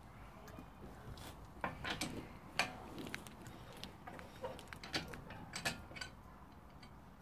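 Irregular light metallic clicks and scrapes of wheel bolts being handled and fitted at the hub of a car's alloy wheel during a wheel change.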